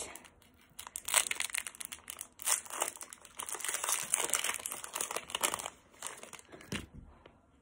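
Foil wrapper of a Pokémon trading-card booster pack being torn open and crinkled by hand: a run of crackling, rustling tears that lasts several seconds and dies away near the end.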